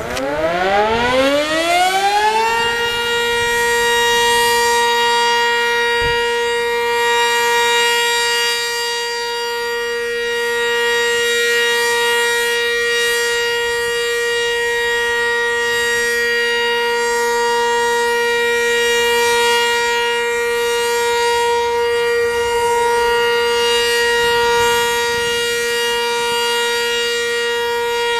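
Sentry 20V2T two-tone outdoor warning siren winding up over about two and a half seconds, then holding a steady, loud tone at constant pitch during its test run.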